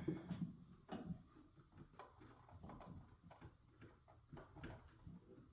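Faint, irregular light clicks and taps of metal parts being handled as a defrost heater element is worked out of a refrigerator's evaporator coil.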